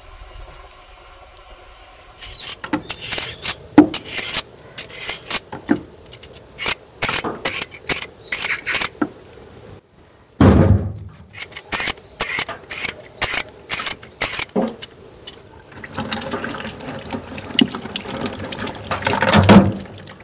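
Quick, repeated scraping strokes of a hand peeler taking the skin off a sweet potato over a plastic bowl in a sink, several strokes a second. About three-quarters of the way through, tap water starts running and splashing into the bowl as the peeled sweet potato is rinsed.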